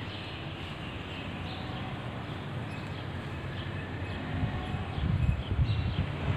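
Outdoor garden ambience with scattered short bird chirps, and wind buffeting the microphone from about two-thirds of the way through.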